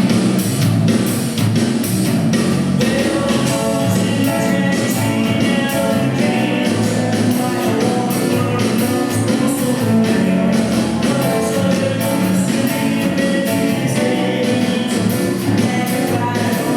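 Song with singing over guitar and drums, with a steady beat.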